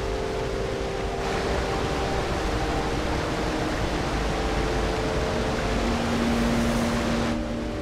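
Steady rush of a wall of falling water, starting about a second in and cutting off shortly before the end, over a soft bed of long held ambient notes.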